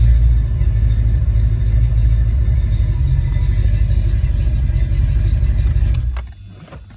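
Ford Mustang 5.0 V8 idling steadily on the A9L engine computer under test, then shut off about six seconds in, leaving a low hum.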